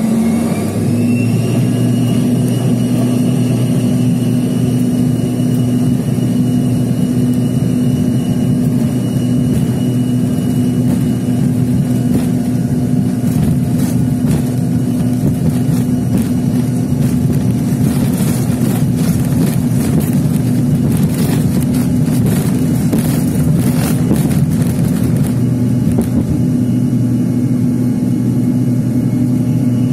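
Jet airliner engines heard from inside the cabin at takeoff power: a whine rising in pitch over the first two seconds as they spool up, then a loud, steady drone with a low hum. A rattle from the plane rolling fast down the runway builds up and stops a few seconds before the end, as the plane lifts off.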